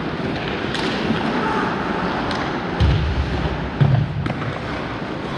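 Hockey rink ambience: skates scraping the ice and the odd sharp click of sticks and puck, with two dull low thumps about three and four seconds in.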